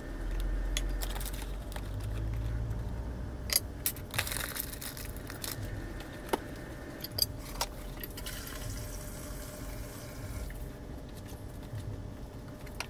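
Flour being measured into a glass measuring bowl: a low rumble of handling at first, then a few light clinks and taps against the glass.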